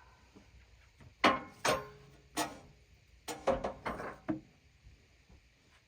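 A run of sharp knocks and clunks, about eight at uneven spacing, each ringing briefly, the loudest about a second in.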